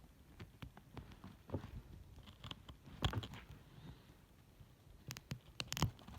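Small plastic minifigure parts being handled and fitted together: scattered light clicks and taps, with a quicker cluster of sharper clicks near the end.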